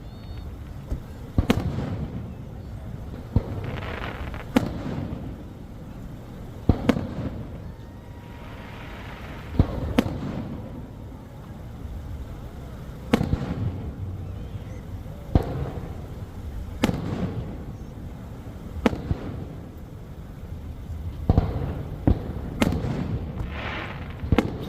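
Aerial fireworks shells bursting: a dozen or so sharp bangs at irregular intervals a second or two apart, each followed by a low rumbling echo.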